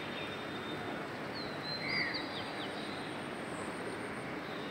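Steady background noise of a city from a rooftop, an even hum of distant traffic. A few faint high chirps come through about a second and a half to two and a half seconds in.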